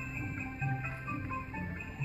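Christmas music with jingle bells, a bass line stepping to a new note about twice a second under a higher melody.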